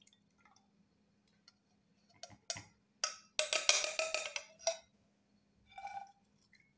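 Kitchen utensils and a glass bottle clicking and knocking as they are handled, with a quick run of rapid clattering taps a little over three seconds in and a short ringing knock near the end.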